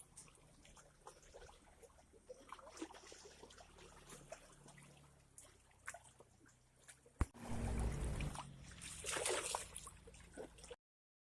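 Faint trickling water with small scattered clicks, then a sharp knock about seven seconds in, followed by a second of loud low rumbling and a brief loud rushing splash-like noise. The sound cuts off abruptly near the end.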